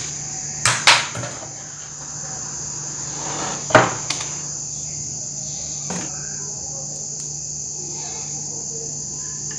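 A few separate sharp clicks and knocks from handling a laptop motherboard and multimeter probes, over a steady high-pitched hiss and a faint low hum.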